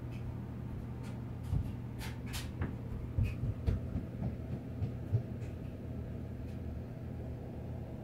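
Steady low hum from the running aquarium equipment, with a scatter of soft knocks and clicks between about one and a half and five seconds in.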